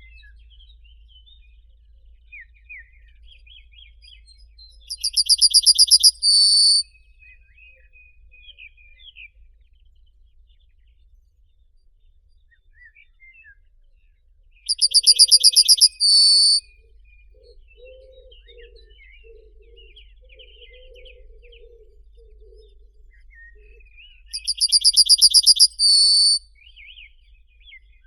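Birdsong: one bird repeats a loud, rapid trill ending in a short note, three times about ten seconds apart, over scattered fainter chirps from other birds. A faint low warbling call runs through the middle.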